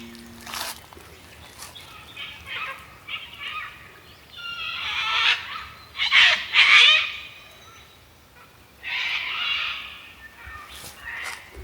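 Wild birds calling in a forested valley: several varied calls and song phrases in bursts, the loudest a run of falling notes about six to seven seconds in.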